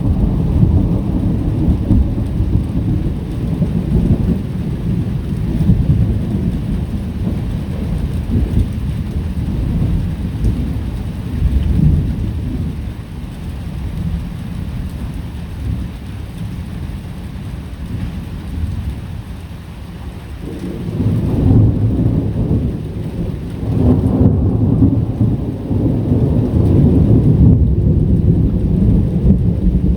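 Rolling thunder rumbling deep and long over steady rain. The rumble eases off through the middle and swells again about two-thirds of the way through.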